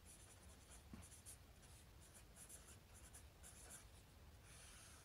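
Sharpie felt-tip marker writing on paper: faint, irregular scratchy strokes as words are written out.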